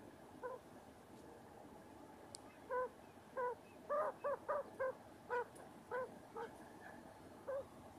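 Broody quail hen giving a series of short, low clucking calls, about eleven in all, coming fastest around the middle.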